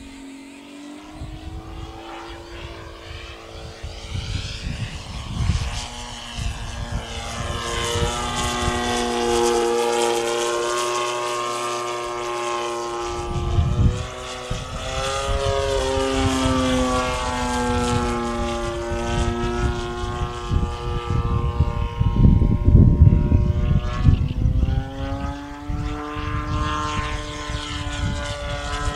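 Radio-controlled model airplane flying, its motor and propeller droning and rising and falling in pitch as it manoeuvres. The sound grows louder over the first several seconds.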